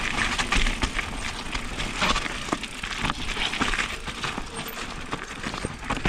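Norco Range VLT electric mountain bike rolling down a rocky trail: tyres crunching over rock, with frequent sharp knocks and rattles from the bike.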